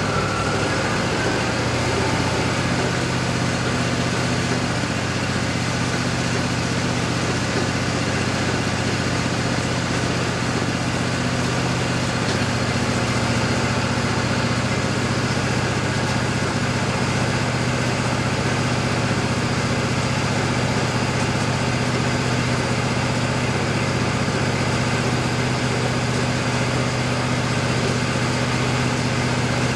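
Wood-Mizer LT40 band sawmill's engine running steadily, its pitch shifting slightly about twelve seconds in.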